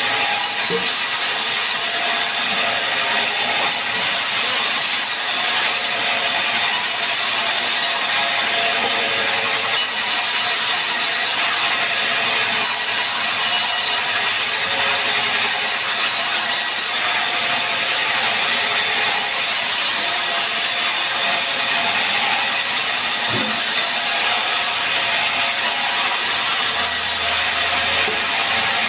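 Band sawmill running steadily and sawing sengon (albizia) wood, an even, unbroken high-pitched sound of the blade through the timber.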